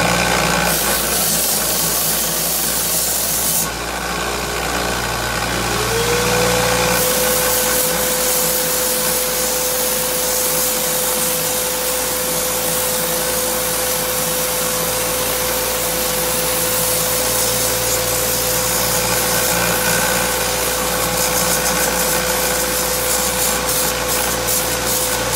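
Small benchtop belt sander running while a maple lure body is pressed and worked against the belt, sanding wood with a steady hum. About six seconds in a whine rises in pitch and then holds steady. The edges are being rounded and smoothed on the slack, unsupported part of the belt where there is no back plate.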